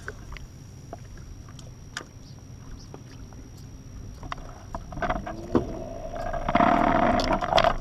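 Fishing boat sitting on open water, with water lapping at the hull and small clicks and knocks. Near the end comes a louder rushing sound with a steady hum in it, lasting about a second.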